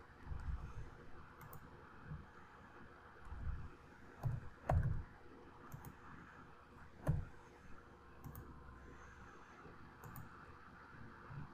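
Scattered computer keyboard keystrokes and mouse clicks as values are typed into form fields. The sharpest knocks come about halfway through and again a couple of seconds later.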